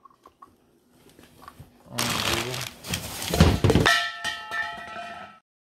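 Rummaging in a cardboard box: a loud rustling with a few heavy thuds, then a bell-like ringing chord of several tones for about a second and a half that cuts off abruptly.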